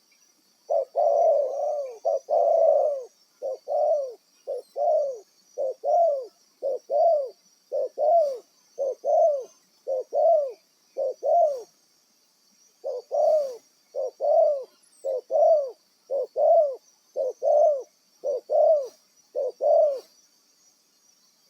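Spotted dove (tekukur) cooing: two longer coos, then a long run of short coos at about two a second, a brief pause about halfway through, then the run resumes. A steady high insect hiss runs underneath.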